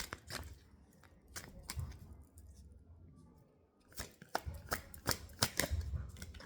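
Tarot cards being handled and shuffled: a string of sharp card snaps and flicks, a few at first, a pause, then a busy run of them over the last couple of seconds.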